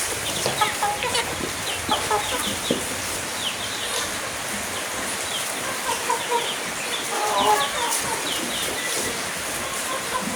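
Chickens clucking, with many short, high, falling chirps scattered throughout.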